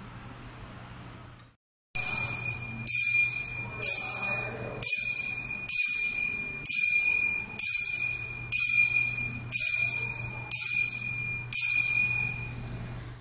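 Altar bells rung in about eleven even strokes, roughly one a second, starting about two seconds in. Each stroke is a bright jingle of several high tones that rings down before the next.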